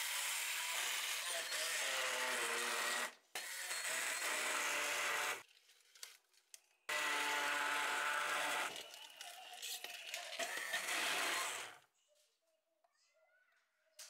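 Handheld immersion blender running in a tall plastic beaker, puréeing spinach and chopped nuts into pesto. The motor runs in bursts, with a brief stop about three seconds in and a longer pause about halfway through. Its pitch wavers as the blades work through the leaves, and it stops near the end.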